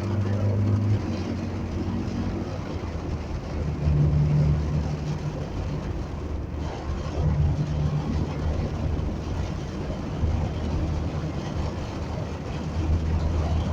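Heavy rain falling steadily, with the low hum of vehicle engines on a wet street rising and fading under it, strongest near the start, around the middle and near the end.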